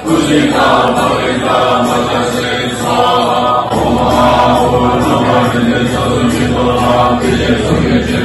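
Many voices of a Tibetan Buddhist congregation chanting a prayer together in unison, at a steady recitation pace.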